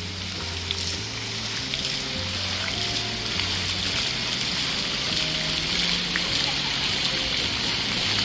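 Fountain jets splashing with a steady hiss, over background music with slow held bass notes; the water sound cuts off abruptly near the end while the music carries on.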